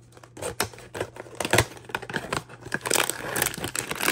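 A cardboard blind box being opened by hand: sharp tearing and clicking as the strip and flaps give way. Then, from about three seconds in, a denser crinkling as the foil bag inside is handled.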